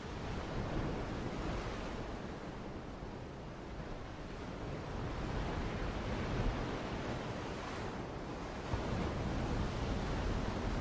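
Background nature soundtrack of ocean surf: a steady rushing wash that eases and swells slowly.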